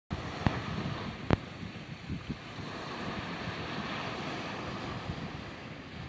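Small waves breaking and washing up on a sandy beach, with wind buffeting the microphone. Two sharp clicks within the first second and a half.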